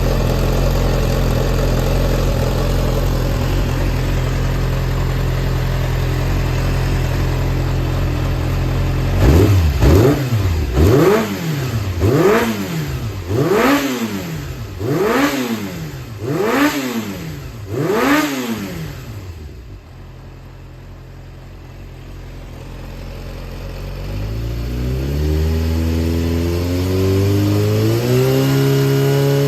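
Yamaha XJR400 air-cooled inline-four engine idling steadily, then blipped through about seven quick revs roughly every second and a half, each falling straight back. It settles to a quieter idle, then climbs slowly to a held higher speed near the end. It runs smoothly, with no abnormal noise by the seller's account.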